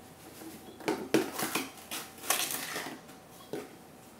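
Clear plastic sugar container being handled and tipped to pour cane sugar into a mixing bowl: a few short plastic clatters and rustles.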